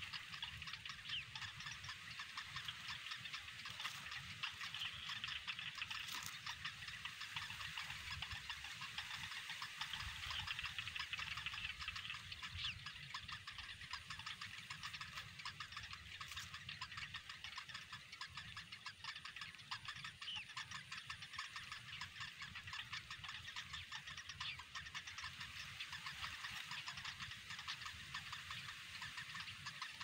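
A steady chorus of rapid ticking and chirring animal calls, with a faint low rumble beneath.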